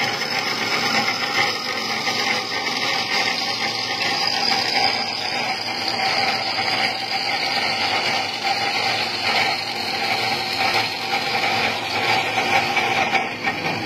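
400B automatic-feed circular cold saw for metal tube running steadily, a continuous mechanical hum carrying a few steady tones.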